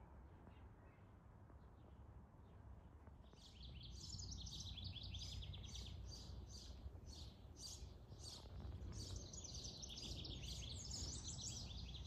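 A bird calling: a long run of high chirps repeated a few times a second, starting about three seconds in, over a low background rumble.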